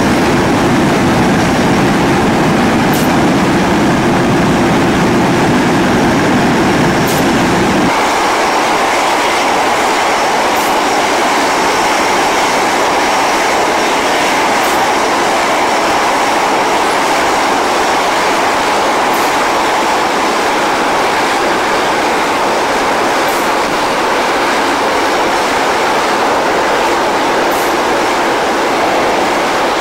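Loud, steady aircraft and ramp-equipment engine noise. A deeper rumble for the first eight seconds cuts off abruptly, leaving a higher, even rushing roar.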